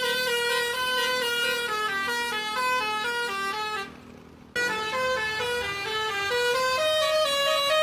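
Bus telolet 'basuri' horn playing a quick stepping melody of flute-like notes. It breaks off for under a second about four seconds in, then carries on.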